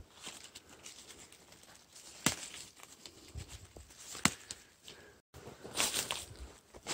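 Dry leaf litter rustling as leafy wild greens are picked by a gloved hand, with two sharp snaps of stems breaking, about two and four seconds in. Near the end, a denser crackling rustle of feet and brush moving through dry leaves.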